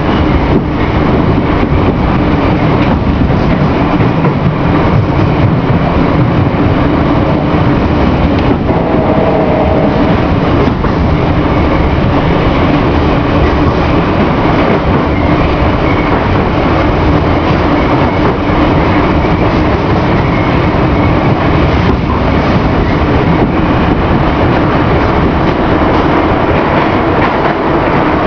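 Old metro train running at speed through a tunnel, heard on board: loud, steady running noise of wheels and running gear, with a steady low hum underneath.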